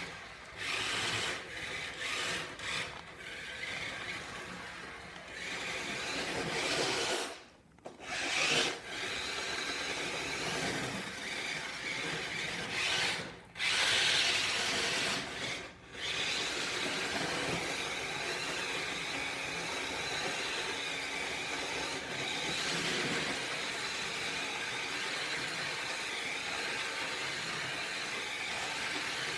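A 6-volt toy RC car's small electric motor and gears whirring as it is driven on tape-wrapped tyres that spin with almost no grip. The sound cuts out briefly three times, about seven, thirteen and sixteen seconds in.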